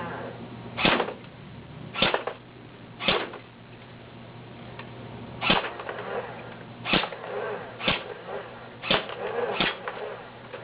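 Well R6 M4A1 airsoft gun fired in semi-auto, eight single shots spaced about a second apart with a pause of a couple of seconds after the third.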